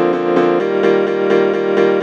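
Background music: repeated chords in a steady pulse, changing to a new chord about half a second in.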